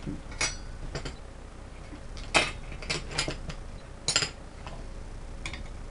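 Bolts, washers and tools clinking against the metal air-compressor mounts and steel air tank as the compressor is being bolted down: a scatter of short, sharp metallic clinks, the loudest about two and a half seconds in and again around four seconds.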